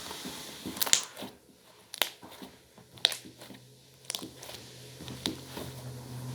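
Slime being squeezed and stretched by hand, with a few sharp clicking pops about once a second and soft squishing between.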